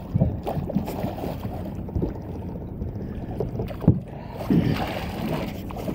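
Steady low rumbling of wind and water on a small fishing boat, broken by a few sharp knocks, the loudest about four seconds in.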